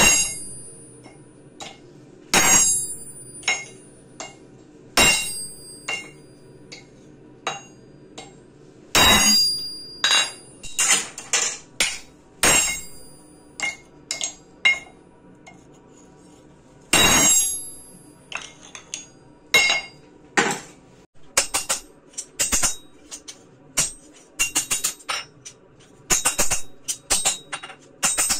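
Hammer blows on steel over an anvil while forging a gouge blank. Hard ringing strikes come a few seconds apart, with lighter taps between them and a quicker run of strikes near the end.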